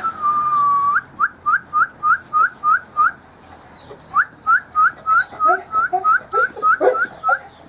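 A person whistling: one long held note, then a quick run of short rising whistles, about three or four a second, with a brief break midway. Cretan hound puppies whimper more quietly beneath it in the second half.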